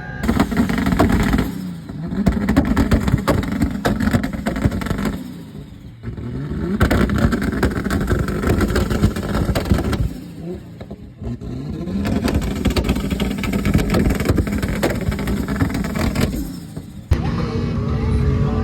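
Big 4x4 engines revving hard on desert sand, the pitch climbing and dropping as they accelerate, with rough noise throughout. The sound breaks off abruptly a couple of times.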